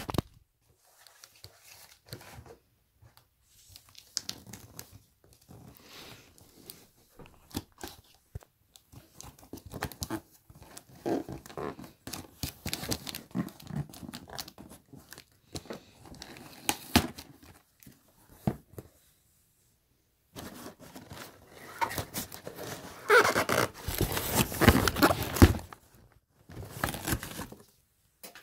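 A cardboard shipping box is opened by hand: tape tearing and cardboard flaps and brown packing paper rustling and crinkling in irregular bursts. A louder, denser stretch of tearing and rustling comes about three-quarters of the way through.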